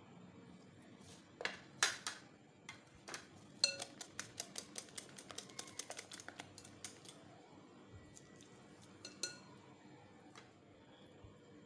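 A metal utensil beating eggs in a glass bowl, clinking against the glass. There are a few loud knocks, then a quick even run of clinks at about six a second for several seconds, then one more clink near the end.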